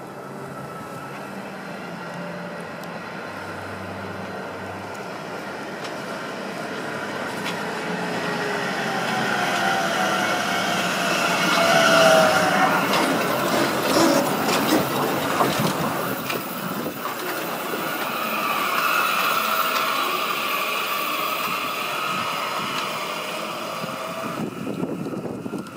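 Rubber-tyred Translohr guided tram passing close by, its noise building to loudest about halfway through. There is a gliding whine as it goes by, followed by a few clicks.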